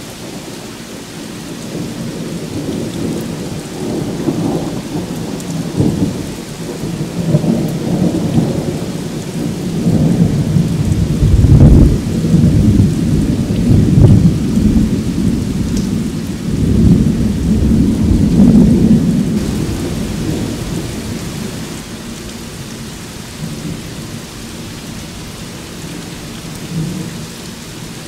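Steady heavy rain falling on a street, with a long roll of thunder that swells for about ten seconds, peaks around the middle, then rumbles away.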